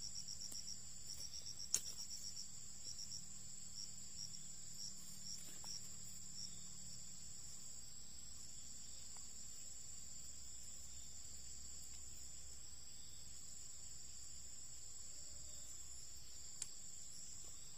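Insects chirping: a steady high-pitched trill, with a faster pulsing chirp over it in the first few seconds. A couple of faint clicks come from the wire snare loop and sticks being handled.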